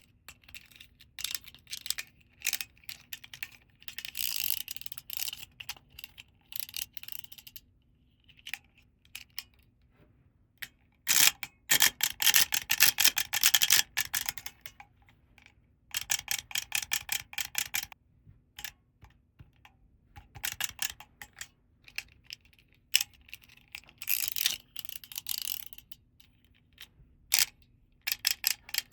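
Small plastic toy parts and packaging being handled, giving bursts of rapid clicking and rattling a few seconds long, with short pauses between.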